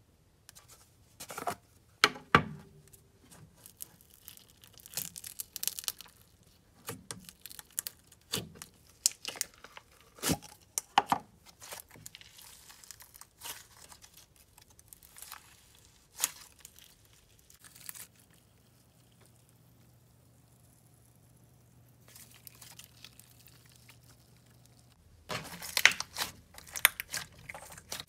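Clear yellow slime with yellow cubes mixed in, squeezed and stretched by hand: sticky crackling and short popping clicks, scattered at first, then a quiet stretch, then a dense run of crackling near the end.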